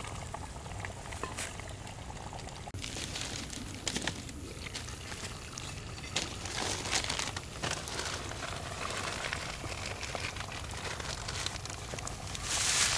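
Chicken feet curry simmering in an earthen clay pot, with a spatula stirring and scraping through it and scattered small crackles. There is a louder noisy stretch near the end.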